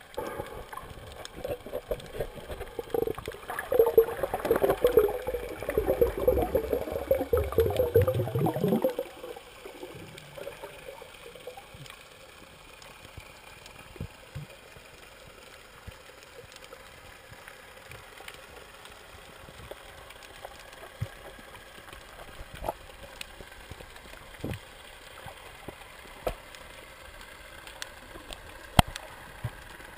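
Underwater audio through a camera housing: about eight seconds of bubbling, rushing water that cuts off suddenly about nine seconds in, then a low underwater hiss with scattered faint clicks.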